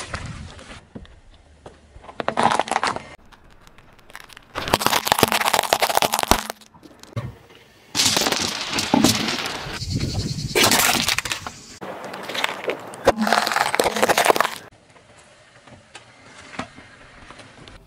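Car tyre rolling over and crushing objects on asphalt, heard as several bursts of crackling and crunching. The longest and loudest stretch comes as it rolls over a pile of glass marbles, grinding and breaking them; near the end it goes quieter as the tyre presses into soft modelling clay.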